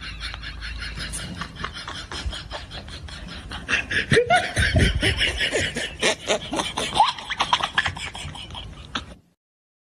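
Cordless drill ratcheting with rapid, even clicks, while people laugh loudly from about four seconds in. Everything cuts off suddenly near the end.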